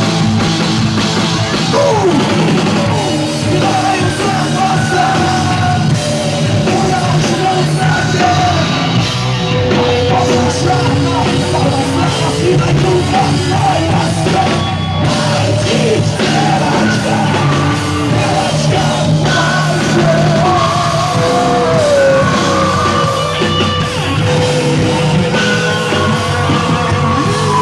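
Live heavy rock band playing loudly with drums and instruments, with yelled vocals over the music.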